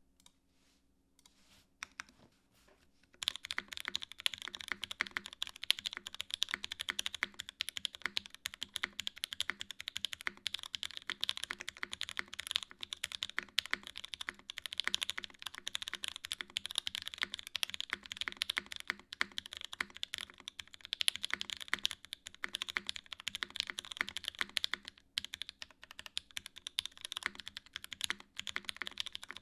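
Fast, continuous typing on a 959 Mini GT custom mechanical keyboard with Pewter switches in a top-mounted aluminium plate and GMK keycaps: a dense clatter of keystrokes that starts about three seconds in, after a near-quiet opening.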